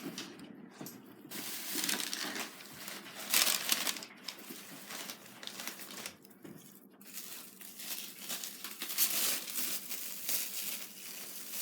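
Packaging wrap crinkling and crumpling as it is handled and pulled off costume gloves, in irregular rustling bursts with a short lull a little past the middle.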